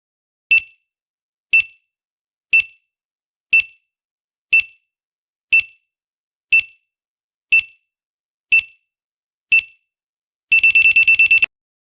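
Quiz countdown timer beeping: ten short high beeps, one a second, then a rapid run of about ten beeps in a second near the end, signalling that time is up.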